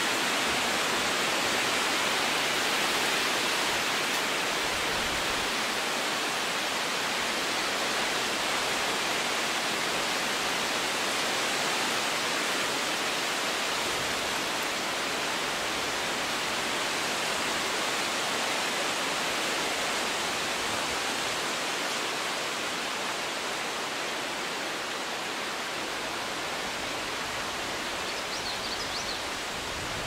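Wind blowing through the leaves of forest trees, a steady, full rustling hiss that eases slightly toward the end.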